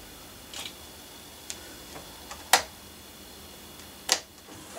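A few short sharp clicks and knocks from model railway wagons and the train controller being handled. The loudest comes about halfway through, and another loud one near the end as a hand goes to the controller.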